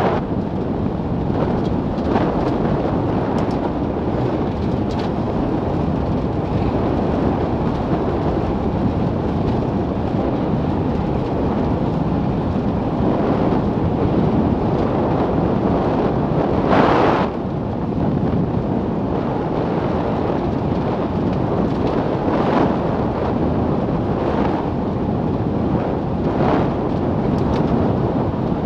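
Wind rushing over the microphone and road rumble from a Milan Mk4 velomobile rolling at about 45 km/h on a rough road surface, with a few brief knocks from bumps. A louder gust-like rush about 17 seconds in.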